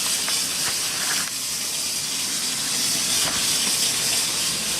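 Top-loading washing machine filling with water, a steady hiss of water running into the drum.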